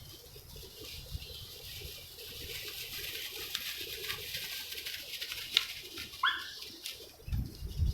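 Faint bird calls over a steady high hiss, with a short rising call about six seconds in. A low rumble starts near the end.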